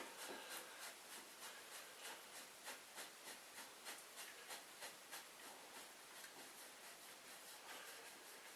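Near silence with faint, evenly spaced ticking, about three ticks a second, fading out after about six seconds.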